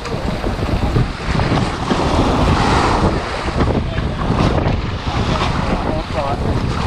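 Small waves washing and splashing around a boat's hull and wading legs in shallow surf, under heavy wind buffeting on the microphone. A louder rush of water comes about two to three seconds in.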